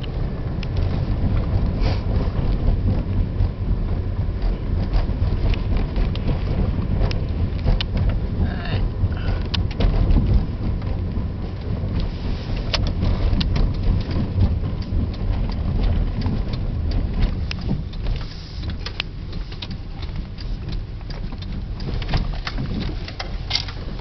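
In-cabin engine and road rumble of a car with an EJ22T turbocharged flat-four, driving along, with scattered sharp clicks throughout. The rumble eases slightly about three quarters of the way through.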